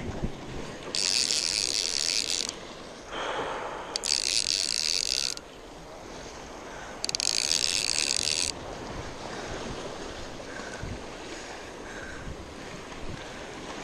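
A spinning reel's drag buzzing three times, each run about a second and a half long, as a hooked shark pulls line off. Waves wash against the jetty rocks between the runs.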